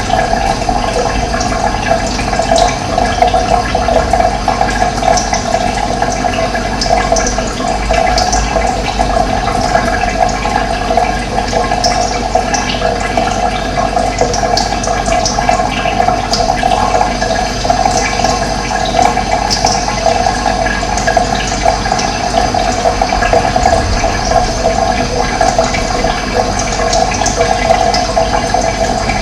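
Steady rush of running water, with short bird chirps scattered above it.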